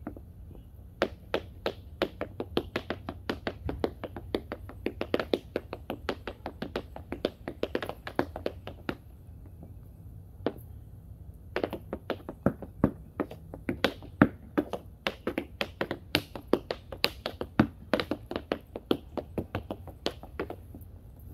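Tap dancing: metal taps on tap shoes striking a board laid on the ground, sharp clicks in quick rhythmic runs of several a second. The tapping breaks off for about two seconds midway and then picks up again.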